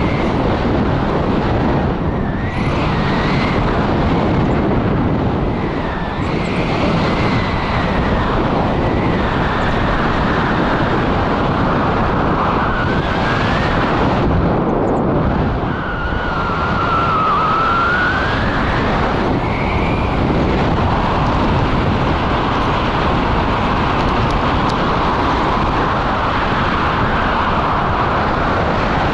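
Airflow buffeting a camera microphone held out on a selfie stick in paraglider flight: a steady, loud rush of wind noise, with a few faint whistling tones gliding up and down in pitch.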